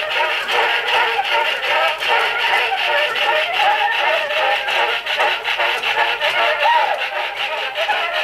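Music played back from a wax cylinder record on a Graphophone cylinder phonograph. It sounds thin, with almost no bass, over steady surface hiss and faint crackle.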